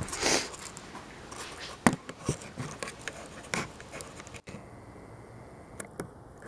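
A few light knocks and clicks of parts and tools being handled on a work surface, with a short rustle at the start; a little past halfway the sound cuts off abruptly to quieter room tone.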